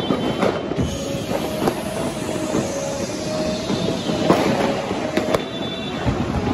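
New Year's Eve firecrackers going off: a constant crackling din with separate sharp bangs, the loudest about four seconds in. A horn sounds on and off through the middle.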